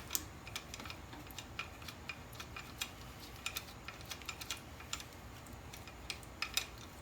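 Ratchet wrench and socket clicking in short irregular runs, with light metal tool taps, as the alternator's belt-adjuster bolt is turned out to slacken the drive belt.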